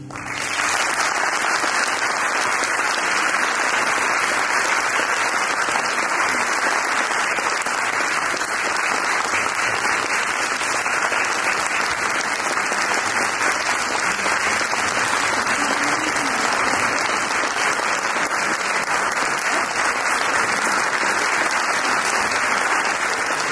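A large audience applauding steadily at the close of a string orchestra piece.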